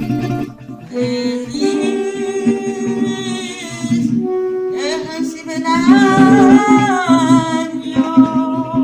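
Acoustic guitar and saxophone playing a slow serenade, the saxophone carrying the melody in long held notes.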